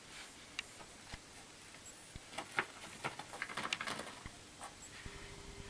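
Faint, irregular crinkling and rustling of scrunched paper inside a lavender-filled fabric glasses case as a ferret noses and pushes it about, busiest around the middle.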